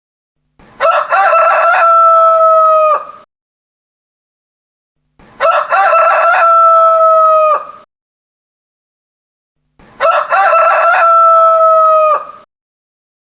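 Rooster crowing three times, about four and a half seconds apart. Each crow has a choppy opening and then a long held note that drops off at the end, with dead silence between the crows.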